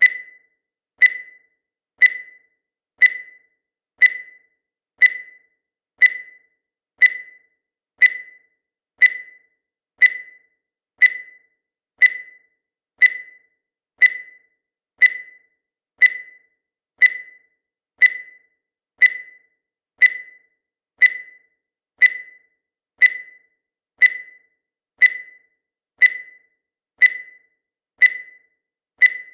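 Countdown timer sound effect: one short high beep each second, each fading quickly, keeping an even one-per-second rhythm.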